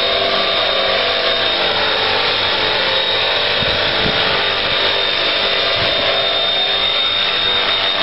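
Electric RC model Bell UH-1 Huey helicopter's motor and rotor running steadily: a high motor whine over a whirring hiss.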